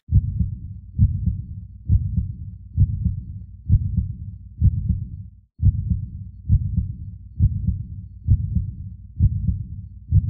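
Heartbeat sound effect: slow, low thumps repeating steadily about once a second.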